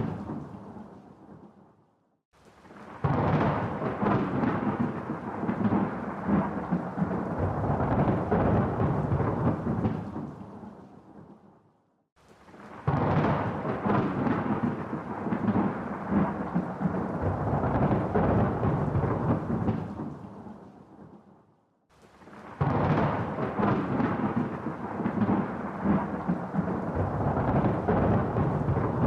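Thunder rolling three times, each roll starting suddenly, rumbling with crackles for about eight seconds, then fading away to a moment of near silence before the next.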